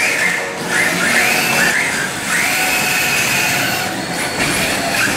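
Radio-controlled drift cars running: electric motors whining, the pitch bending up and down as the throttle is worked, in several drawn-out passes of about a second or more each.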